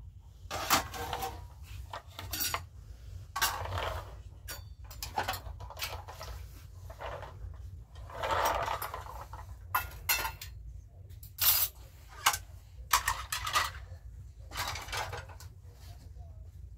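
Dishes and a frying pan clattering and clinking as they are handled and put away on a wire dish rack, in irregular sharp knocks with a longer rattling scrape about eight seconds in.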